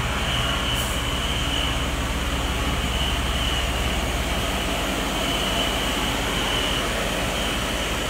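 Steady mechanical rumbling noise with a faint high hiss, unchanging throughout.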